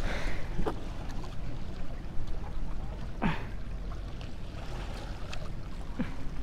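Steady low wind rumble on the microphone with water washing against the jetty rocks, and three short squeaks falling in pitch.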